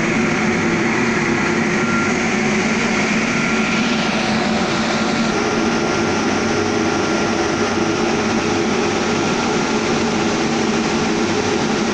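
Vertical glass washing machine running: a steady machine hum under a loud, even hiss, with a thin steady whine above. The hiss changes in tone about four seconds in.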